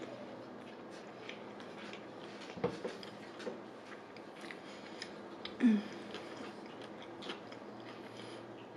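Close-miked chewing of a mouthful of Subway sub sandwich: soft, wet mouth clicks and smacks, with one louder short sound about six seconds in.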